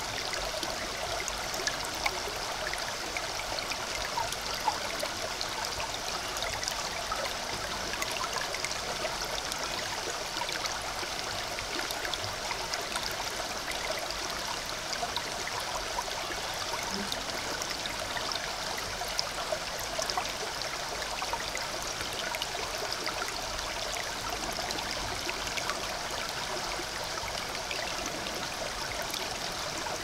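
Small woodland stream trickling steadily along a mossy bank, with many small drips and splashes scattered through the flow.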